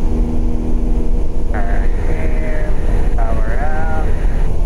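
Single-engine propeller airplane's engine and propeller droning steadily in flight, heard inside the cockpit.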